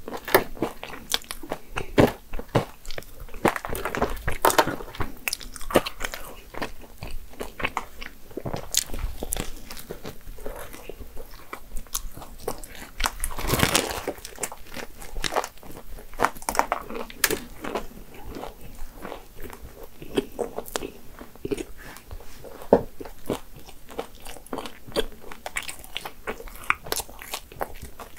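Close-miked biting and chewing of a flaky croissant-dough cream pastry (pain à la crème), with crisp crackles of the layered crust throughout. There is a louder crunchy bite about halfway through.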